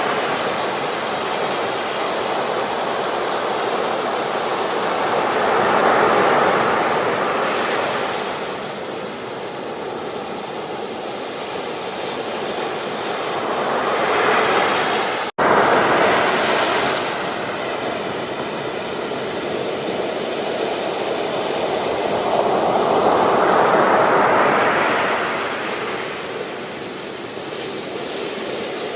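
Ocean waves breaking on a beach, the surf swelling and easing about every eight to nine seconds. The sound cuts out for an instant about halfway through.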